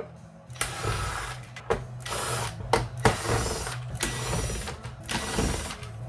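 Cordless drill/driver spinning screws out of a robot vacuum's plastic housing, in a few short runs with brief pauses between.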